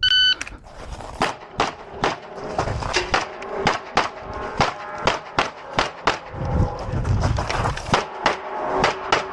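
A shot timer's short start beep, then a rapid string of pistol shots, about two to three a second with brief pauses, as a shooter runs a USPSA stage.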